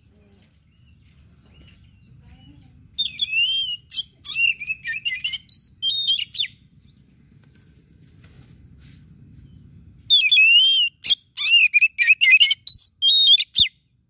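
Oriental magpie-robin singing: two bursts of fast, varied whistled phrases with quick slurred notes, starting about three seconds in and again about ten seconds in. A thin, steady high tone is heard between the bursts.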